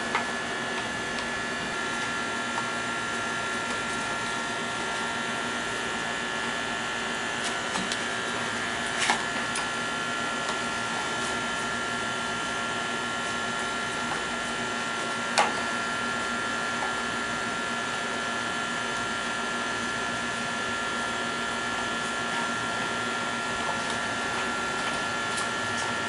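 A steady motor hum with a high-pitched whine runs throughout. Twice, about nine and fifteen seconds in, there is a short sharp knock from hand tools working at a gas water heater's burner opening.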